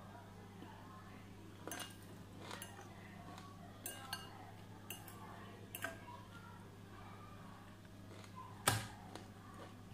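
Metal fork clinking and scraping against a glass salad bowl: about seven sharp clicks spread out, the loudest near the end, over a steady low hum.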